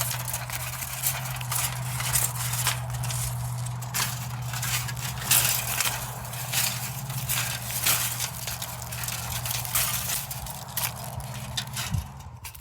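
Cutting through the terminal end of an AC electrolytic capacitor: a long run of irregular crunching and crackling as the tool bites through the can.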